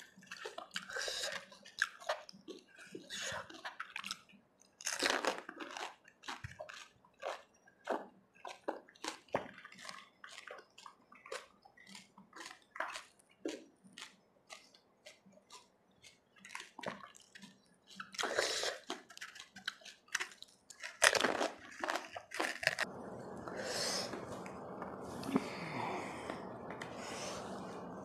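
Crisp pani puri (gol gappa) shells crunching and being chewed with a wet mouth, in many short sharp crackles. About 23 seconds in, a steady hiss comes in under fewer, softer sounds.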